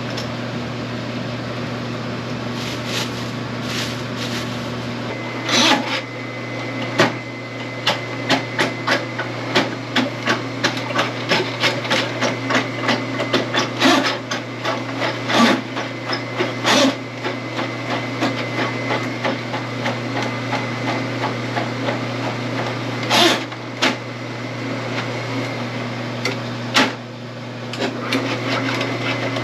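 Electric drain-cleaning machine running with a steady hum while its spinning cable knocks and clatters against the drain pipe in irregular clacks, busiest through the middle.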